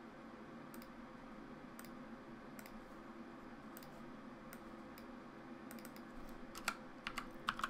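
Computer mouse and keyboard clicks over a faint steady hum: single clicks roughly once a second, then a quick run of keystrokes near the end as a dimension is typed in.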